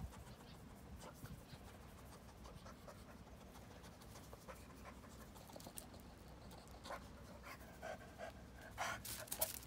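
French bulldog panting and sniffing at the grass, with a few louder short breaths near the end.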